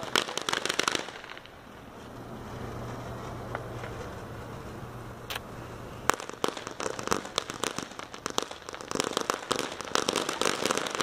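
Ground fountain firework crackling as it sprays sparks, a dense rapid crackle that thins out about a second in and returns strongly about six seconds in.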